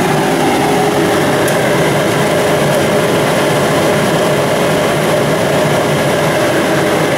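New York Blower 2 HP steel centrifugal exhaust blower, a three-phase motor rated at 3465 RPM, running at full speed: a loud, steady rush of air with a steady hum.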